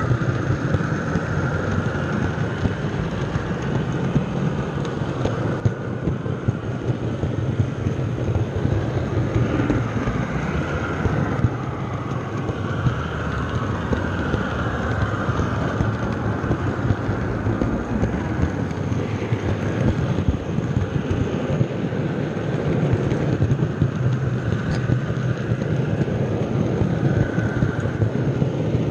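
A model train rolling along the track, heard from a camera car in the train: a steady rattling rumble of wheels on rails with dense clicking, and a wavering higher squeal in places.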